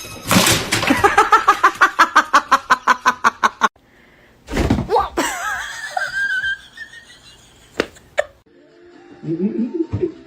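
Laughter in a quick, even run of short bursts for the first three and a half seconds, then a loud thump, a wavering squeaky sound and a couple of sharp clicks.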